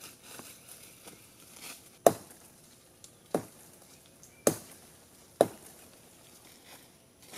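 Four sharp chopping strikes of a blade into wood, about a second apart, the first the loudest.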